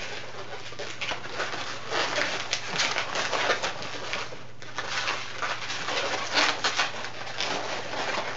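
Latex twisting balloon being wrung into small bubbles and pinch twists: irregular rubber squeaks and rubbing, with a brief pause a little past halfway.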